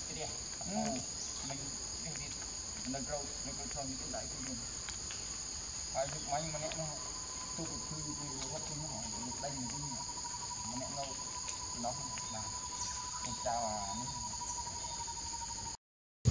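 Steady, high-pitched chorus of insects droning without a break, with short low calls breaking in every few seconds. The sound cuts out just before the end.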